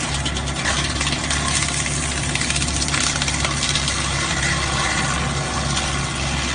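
Excavator's engine running steadily while its hydraulic wood chipper attachment works, a loud rushing noise over a constant low hum.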